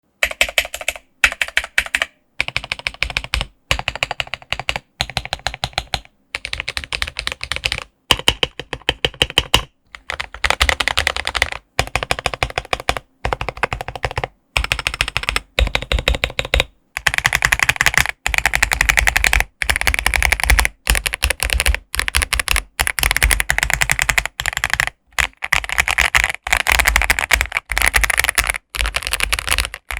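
Mechanical keyboard with stock, unmodified Akko CS Starfish switches being typed on: rapid keystroke clacks, in short runs separated by brief silences for the first ten seconds or so, then near-continuous fast typing.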